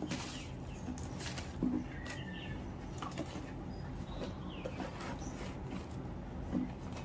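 Rustling and light clattering of papers, pens and craft packets being rummaged through in a cardboard box, a few separate handling noises over a steady low background hum.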